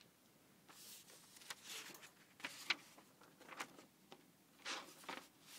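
Folded paper sheets rustling as they are handled and opened by hand, in several short irregular bursts.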